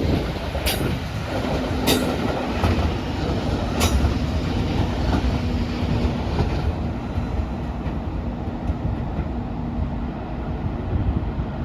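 Train running past on the tracks: a steady rumble, with the wheels clicking sharply over rail joints four times in the first four seconds and a faint steady hum underneath.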